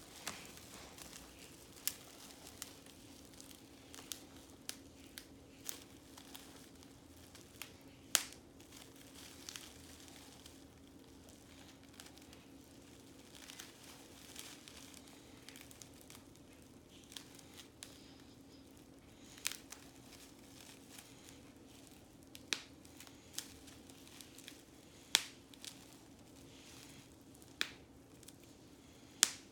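Bubble wrap being squeezed and popped by hand: sharp single pops at irregular intervals, a few much louder than the rest, with soft plastic crinkling between them.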